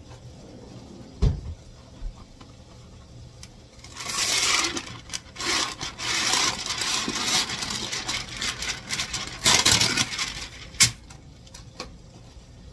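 Sheet of parchment paper being handled and crinkled: a dry, uneven rustle lasting about six seconds. A soft knock comes about a second in and a sharp click near the end.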